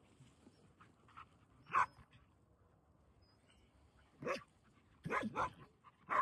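A dog barking in short, sharp barks: a single bark about two seconds in, another about four seconds in, then a quick run of barks near the end.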